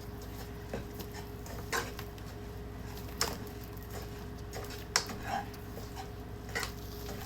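Plastic chocolate-bar mould being peeled and pried off the chocolate: scattered short crackles and clicks, with a faint steady hum behind them.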